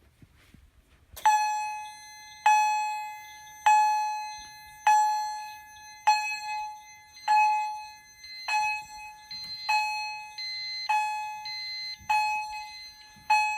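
Fire alarm chime striking one ringing tone that dies away, once about every 1.2 seconds, eleven strikes in all, starting about a second in. A fainter, higher beeping pulses alongside from about nine seconds in.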